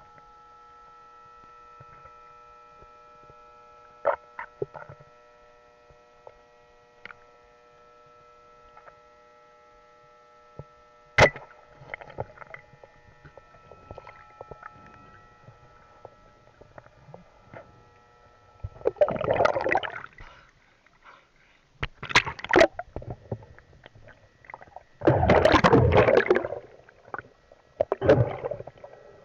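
Underwater sound during a spearfishing dive. At first there is a faint steady whine and a few sharp clicks. In the last ten seconds come several loud bursts of bubbling and rushing water, each a second or two long.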